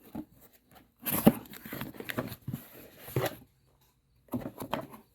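Packaging being handled and opened: rustling, crinkling and tearing in two bursts, the first and longer about a second in, a shorter one near the end.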